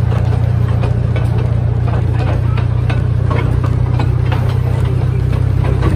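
Small heritage locomotive's engine running with a steady low drone, heard from a moving open passenger carriage, with irregular light clicks and knocks from the carriage running along the light-railway track.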